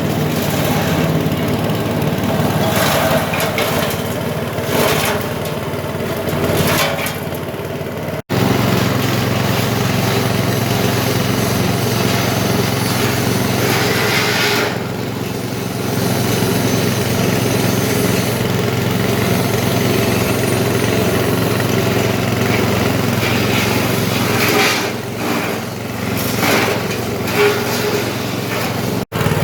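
Patchouli leaf-and-twig chopper machine running steadily on a small engine, with several stretches of noisier rasping surges over the steady drone.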